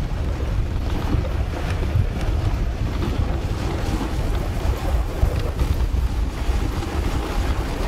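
Wind buffeting the microphone of a moving dog sled: a steady, loud rushing and rumbling noise, heaviest in the low end.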